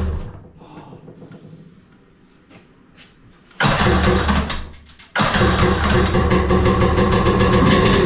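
Jet ski engine being started on brake cleaner, with no fuel tank yet connected. It dies away at the start. About three and a half seconds in it fires and runs for a second or so, cuts out, then catches again about a second later and keeps running steadily.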